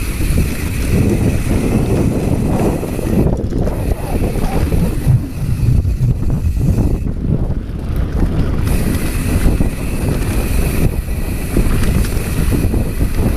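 Mountain bike descending a dirt trail at speed: wind buffeting the handlebar camera's microphone over the rumble and rattle of knobby tyres on dry, loose dirt. It is loud and constant, with a brief lull in the hiss about three seconds in.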